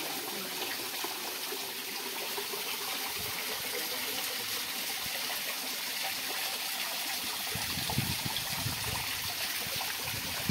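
Water falling and splashing steadily from above, a continuous running trickle. A few low bumps about eight seconds in.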